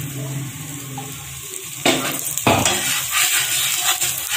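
Paratha frying in oil on a flat griddle (tawa), with a steady sizzle. A metal spatula knocks sharply against the griddle twice around halfway through, then scrapes and clatters lightly as the paratha is pressed and turned.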